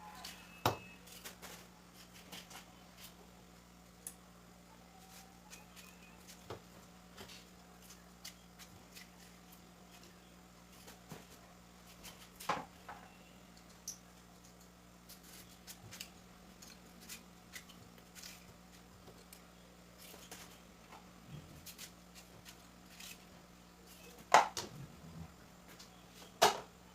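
Scattered knocks and clinks of household items being handled and set down, a few louder ones, over a steady low hum.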